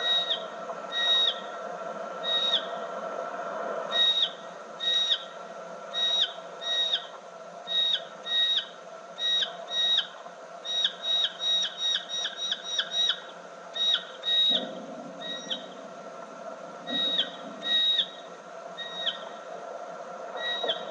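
Mustached bat echolocation calls played back slowed down from tape. Each pulse is a long steady whistle that drops sharply in pitch at its end. They come about once a second, with a quicker run of several a second in the middle. A steady tape hum runs underneath.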